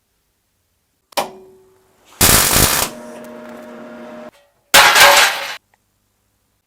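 Two short bursts of welding crackle, each under a second, with a steady hum between them. A sharp click with a brief ring comes before them.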